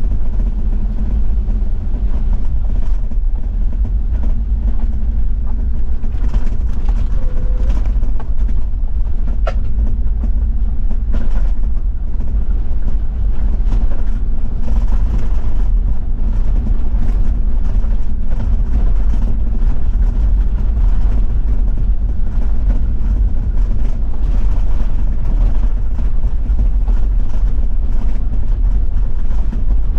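Diesel Toyota Land Cruiser 70 driving on an unpaved forest road: a steady, loud low engine and road rumble, with a single sharp click about nine seconds in.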